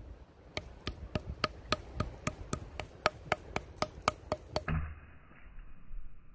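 Wooden branch mallet pounding a raw pork cutlet flat on a wooden cutting board: a run of quick, even knocks, about four a second, that stops short about two-thirds of the way through.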